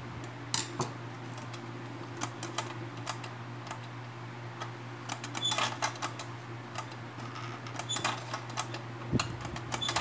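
Scattered light clicks and taps of the plastic and metal parts of a mechanical bathroom scale being handled as its dial is lifted off and fitted back, coming more often in the second half, over a steady low hum.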